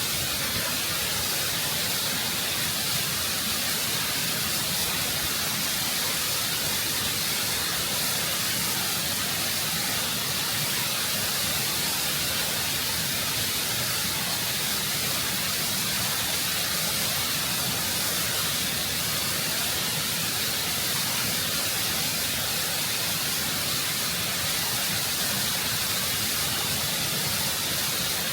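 Waterfall heard close up, water rushing and cascading over rock in a constant, full hiss with no breaks or changes.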